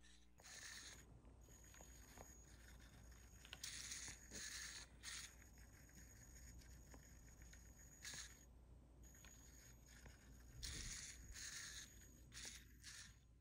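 Faint whirring of small hobby servos driving a 3D-printed animatronic eye mechanism as the eyes and eyelids move, in short bursts of about half a second each. A faint high steady whine runs between some of the bursts.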